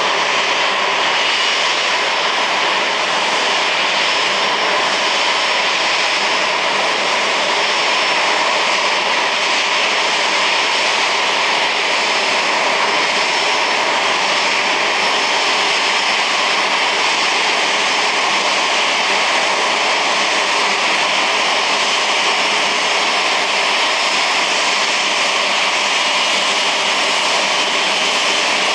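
Jet airliner engines running steadily: a constant rush of noise with faint high whining tones, with no change in level.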